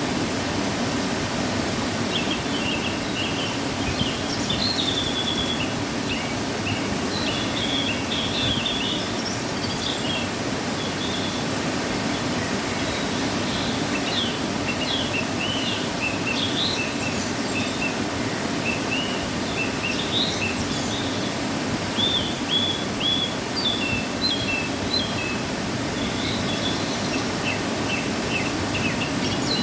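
Waterfall after rain, a steady rush of falling water. From about two seconds in, a songbird calls over it in short repeated chirps and trills.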